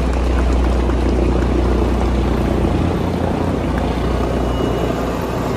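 Helicopter flying overhead, its rotor and engine noise a steady, loud low rumble.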